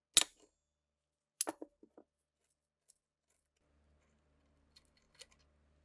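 Sharp metallic clinks from handling rusty machine-gun parts: one loud clink just after the start, then a quick run of four or five clicks and taps about a second later. Near the end come a few faint ticks of steel tweezers against the rusty metal.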